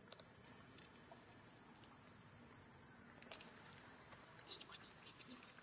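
Steady high-pitched insect chorus of crickets or cicadas, with a few faint clicks.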